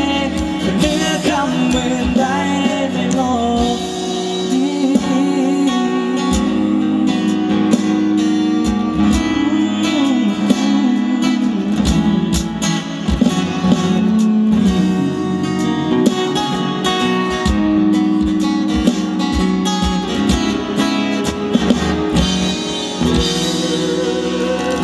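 Live pop song played through a stage PA: a male voice singing over guitar accompaniment with a steady beat.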